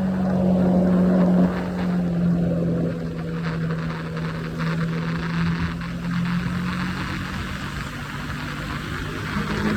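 Triumph Scrambler 400X's single-cylinder engine running at highway speed, with wind rush. The engine note drops and quietens about a second and a half in, and rises again near the end.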